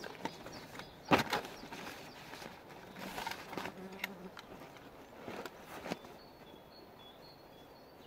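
Handling a woven plastic scrap bag and a hand-held hanging scale: a sharp click about a second in, then rustling and a few light knocks. Faint bird chirps near the end.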